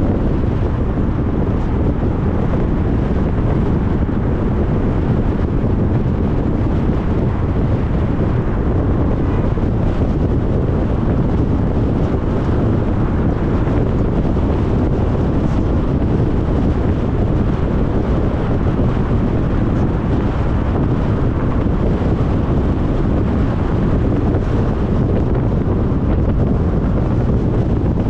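A steady low rush of tyre and wind noise from a car driving along a highway.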